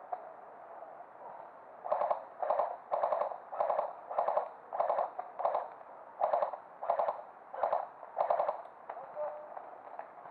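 Airsoft gun firing about a dozen short full-auto bursts in quick succession, each a rapid string of shots. They start about two seconds in and stop near nine seconds, over a faint steady background.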